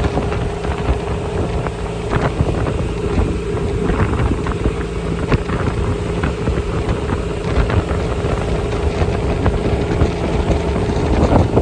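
Strong wind buffeting the microphone over a boat engine running steadily with a constant hum.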